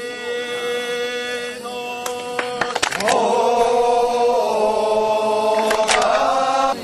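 Voices chanting long held notes, with a short slide up to a higher held note about three seconds in; a few sharp clicks or strikes sound over the chant, twice in close succession around the change and again near the end.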